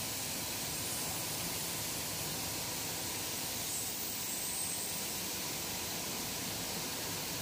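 Steady, even hiss of biscuit production-line machinery, with no change in level throughout.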